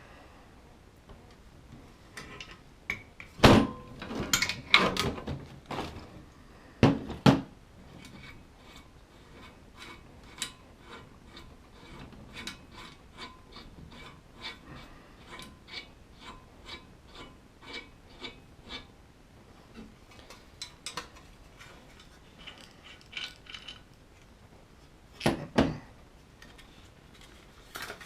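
Metal door latch pocket tool being unscrewed: a long run of evenly spaced metallic clicks, about two a second, with louder metal clanks from handling the tool a few seconds in and again near the end.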